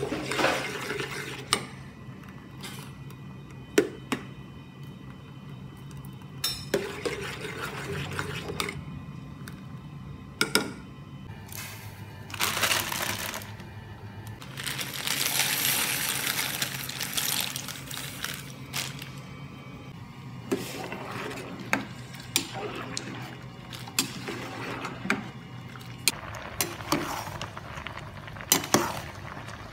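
Kitchen utensils and dishes clinking and knocking against pots, in scattered sharp strikes, with two longer rushes of noise around the middle and a steady low hum underneath.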